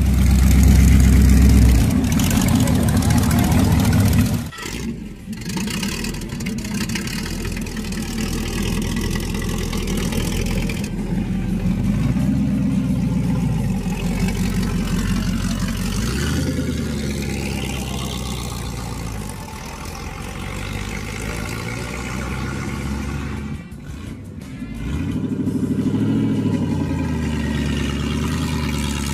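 Big V8 engines of Boss Hoss motorcycles running and revving, the pitch rising and falling, with the sound cutting abruptly from one bike to another about four seconds in and again a few seconds before the end. Near the end a bike rides off along a street.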